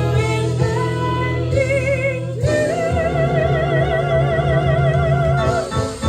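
Show-tune singing over instrumental accompaniment, ending on a long held note with vibrato that starts about halfway in and cuts off near the end.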